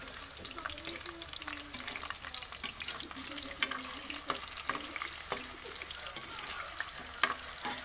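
Potato cubes sizzling and crackling in hot oil in a metal wok, stirred with a metal ladle, with several sharp clicks and pops.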